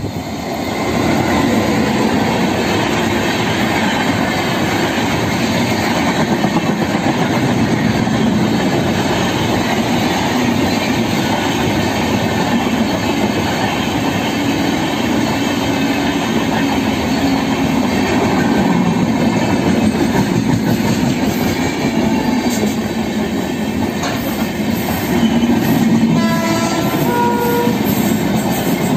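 Express train of red passenger coaches hauled by a WAP-7 electric locomotive passing close at speed: a steady, loud rush of wheels and coaches that builds in the first second. Near the end a freight train of open box wagons runs by alongside, and a locomotive horn sounds in several held notes.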